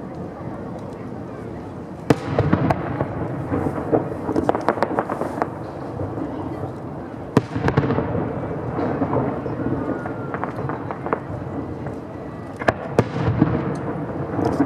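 Aerial fireworks bursting: sharp bangs about two seconds in, again about halfway, and a quick pair near the end, with patches of crackling between them over a continuous low rumble of echoing explosions.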